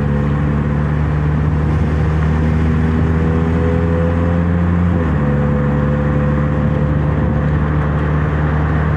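Car engine running steadily with road noise; its note steps slightly about five seconds in.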